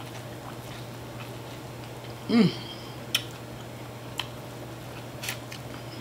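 Quiet mouth and eating sounds: a few sharp lip-smack or utensil clicks, and one short voiced 'mm'-like sound about two seconds in, which is the loudest event. A steady low hum runs underneath.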